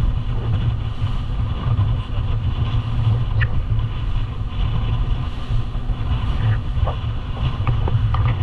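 Steady low rumble of a boat's motor running.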